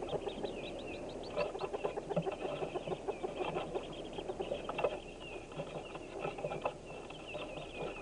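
Hooded merganser ducklings peeping constantly inside the wooden nest box, many short high down-slurred peeps overlapping, with bursts of rapid scratching and scuffling as they scramble about.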